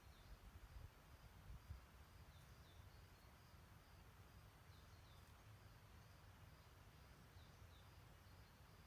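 Faint small-bird chirps: short, falling notes, roughly in pairs every two or three seconds, over a low rumble and soft hiss of outdoor ambience.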